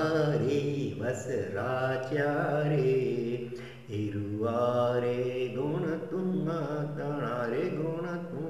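A voice singing a Jain devotional hymn (stavan) in a slow, chant-like style, with long held notes and a short break for breath about four seconds in.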